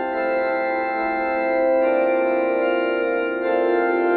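Background music: an organ playing slow sustained chords, the chord changing about two seconds in and again near the end.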